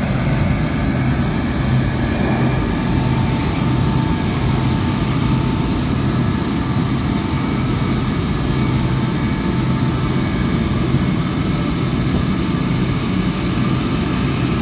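The four turbofan engines of a US Air Force C-17 Globemaster III running at taxi power as the aircraft rolls across the apron: a loud, steady deep engine noise with a thin high whine over it.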